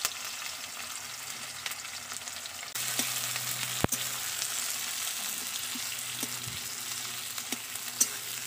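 Sliced onions sizzling as they fry in hot oil in a metal wok, stirred with a metal spatula, with a few sharp clinks of the spatula against the pan, the loudest about four seconds in.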